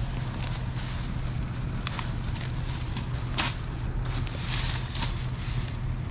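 An engine running steadily with a low, even hum, with scattered crackles and rustles over it.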